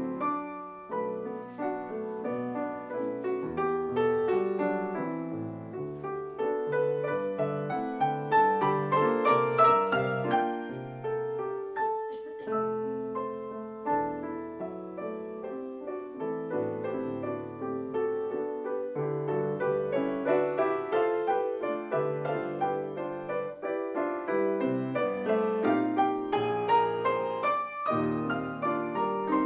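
Grand piano played four-hands as a piano duet: continuous, densely layered notes over a moving bass line.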